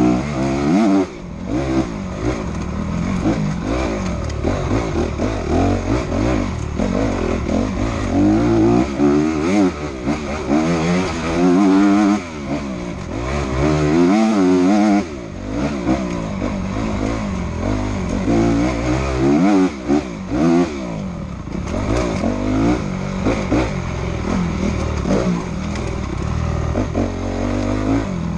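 Enduro dirt bike engine heard close up from on the bike as it is ridden hard, revving up and dropping back again and again as the throttle opens and closes through gear changes. Occasional knocks and clatter from the bike over rough ground.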